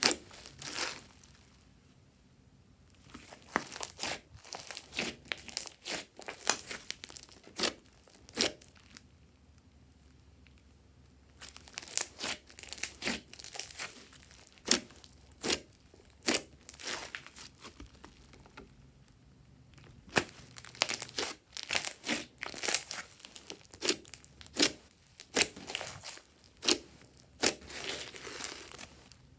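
Hands kneading, pressing and stretching glossy slime: irregular wet pops, clicks and crackles of trapped air squeezed out of it, in clusters with a few short pauses.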